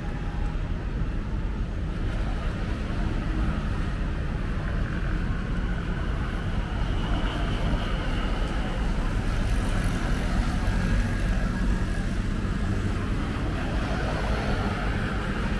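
Steady city road traffic: a continuous low rumble of vehicles passing on the street.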